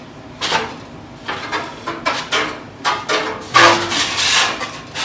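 Steel sheet-metal panel being bent by hand over a pipe anvil: a run of irregular metallic scrapes and clanks as the panel is worked, loudest about three and a half to four and a half seconds in.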